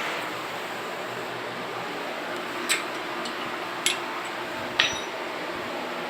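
Three sharp metallic clinks, a second or so apart, from a parrot cage being handled during cleaning, over a steady background hiss.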